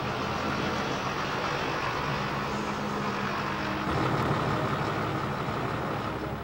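Fendt Favorit tractor's diesel engine running steadily as it drives by; about four seconds in the sound gets louder and its tone changes.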